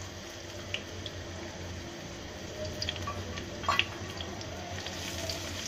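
Sliced onions sizzling in hot oil in a karai, a steady sizzle with scattered small pops and crackles, at the start of frying them into crisp birista.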